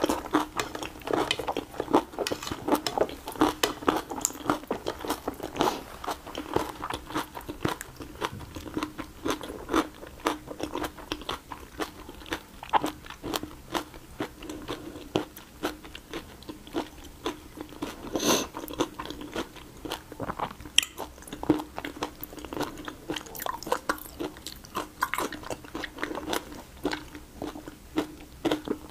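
Close-miked eating of spicy raw shrimp: steady chewing and crunching, with crackles as the shells are pulled apart by hand. Many small crisp clicks come in quick irregular succession, one sharper crack partway through.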